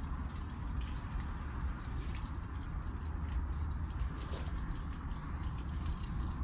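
Water pouring from a plastic watering can onto leafy plants and soil in a raised bed, a steady spatter with small drips and ticks. A steady low rumble runs underneath.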